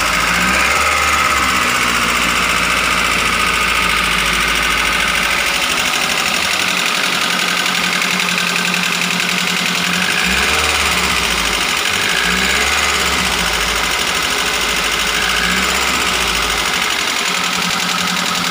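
Daihatsu Gran Max 1.3-litre four-cylinder engine idling steadily with a rough, harsh sound. The mechanic later traces the roughness to incorrect valve clearance.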